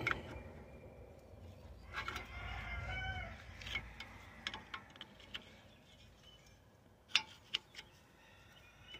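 Scattered sharp metal clicks and knocks as a screwdriver pries the rear brake caliper of a 2003 Ford Explorer back from the disc, the loudest about seven seconds in. A bird calls briefly in the background between two and three seconds in.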